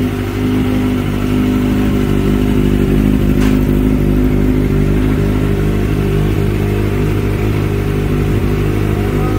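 A motorcycle engine running steadily at idle, its pitch unchanging, with a single sharp click about three and a half seconds in.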